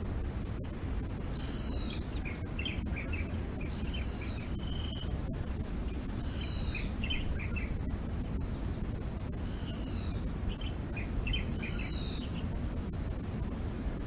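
Forest ambience: a steady high insect drone. Over it a bird calls three times, each call a falling whistle followed by a quick run of short notes, with a low steady background noise underneath.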